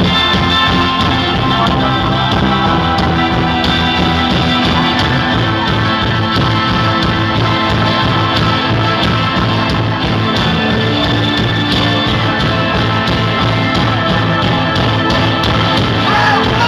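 Rock band playing live, with drums keeping a steady beat under guitar and bass.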